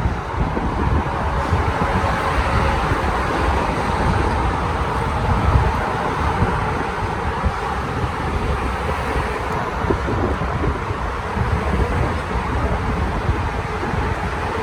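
Wind buffeting the microphone of a moving bicycle rider, over steady street traffic noise.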